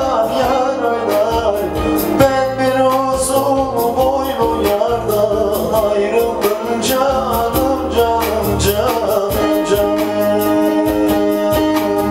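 Man singing a Turkish folk song into a microphone, his voice wavering and ornamented, over a steady plucked-string accompaniment.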